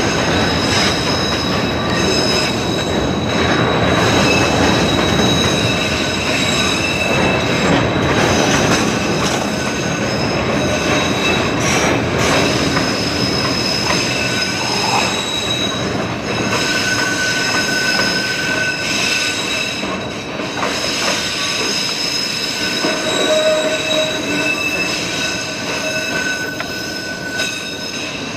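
A train running on the rails, loud and steady, with thin high-pitched wheel squeal coming and going over the running noise.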